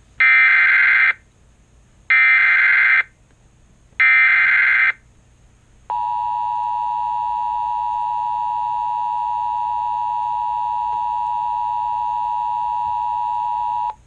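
Emergency Alert System tones from a TFT EAS 911 encoder-decoder: three bursts of SAME header data, each about a second long with a second's gap, then the steady two-tone EAS attention signal for about eight seconds, which stops near the end. Together they mark the start of a relayed emergency alert, ahead of the spoken warning.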